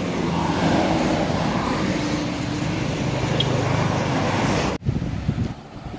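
Bus engine running with a low, steady hum over road traffic noise; the sound cuts off sharply about five seconds in.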